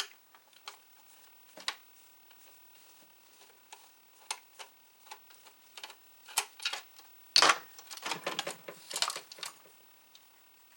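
Small clicks and taps from handling small screws and disk-drive parts on a work surface, with a louder clatter and rustle from about seven to nine and a half seconds in.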